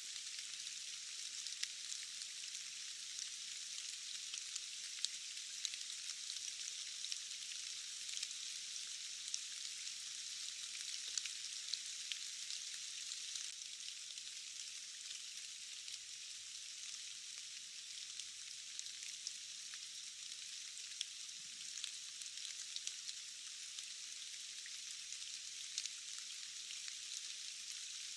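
Steady rain: an even, high-pitched hiss of falling rain with many small, sharp drop ticks scattered through it, and no low rumble.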